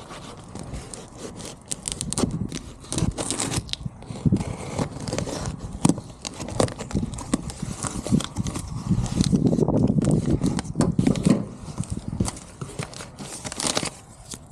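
Shipping package being opened by hand: tearing, scraping and rustling of the packaging with frequent clicks and knocks, busiest past the middle.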